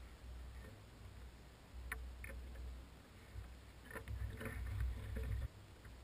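Short knocks and clicks of hands and gear against plastic fishing kayaks held alongside each other, over a low steady rumble. A couple of knocks come about two seconds in and a busier run of them about four to five and a half seconds in.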